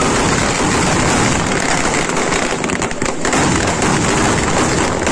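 Firecrackers going off in quick succession, a dense, unbroken crackle of many small bangs.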